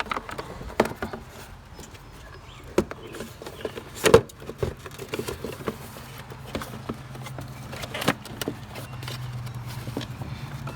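Plastic knocks and clicks as a car's air cleaner box is worked down onto its rubber mounts, with one louder knock about four seconds in. A steady low hum comes in during the second half.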